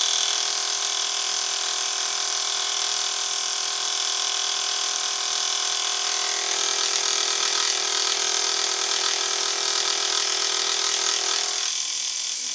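Milling machine running with a homemade dovetail cutter cutting the cast iron cross slide: a steady multi-tone whine with hiss above it. From about halfway through a rougher, wavering sound joins in, and near the end the lower whine stops.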